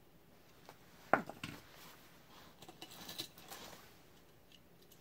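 Small metal die-cast toy cars clicking and clattering as they are handled, set down and picked up: one sharp click about a second in, then a short run of light clicks and rattles.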